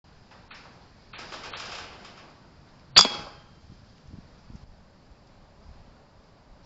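A single air rifle shot about three seconds in: a sharp crack with a short metallic ring. A softer rustling comes about a second before it.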